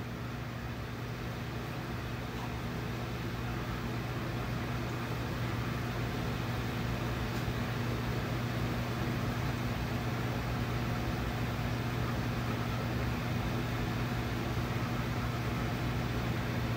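Room air conditioner running: a steady low hum over an even rushing noise.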